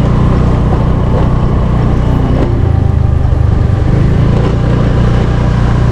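Motorcycle running steadily at road speed: a constant engine rumble with road noise.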